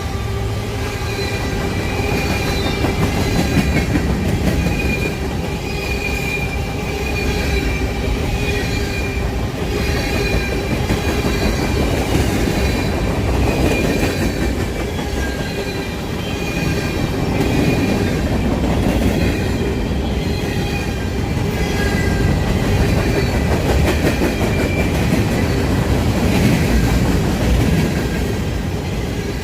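Freight train cars rolling past with a continuous rumble, wheels squealing in thin high tones that come and go.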